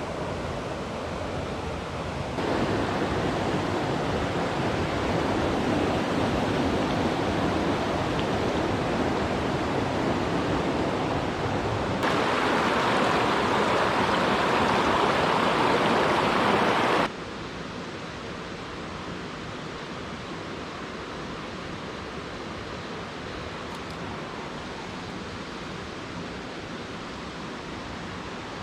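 Mountain creek running: a steady rush of water that gets suddenly louder about two seconds in and again about twelve seconds in, then suddenly drops back to a quieter rush about seventeen seconds in.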